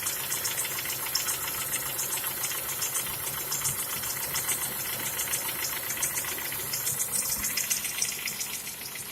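Honda F20B3 four-cylinder engine idling warm, with a fast, even metallic ticking from the valvetrain: the knock of a scored camshaft and rocker arms.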